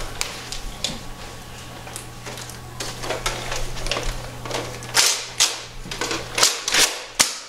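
Nerf Deploy CS-6 blaster being primed and fired by hand: a string of plastic clacks and snaps, fainter at first, then a quick run of loud sharp snaps in the last two and a half seconds.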